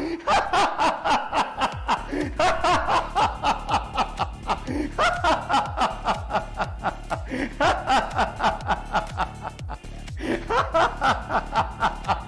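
A man's snickering laughter, repeating in bursts about every two and a half seconds, over background music with a fast, even beat.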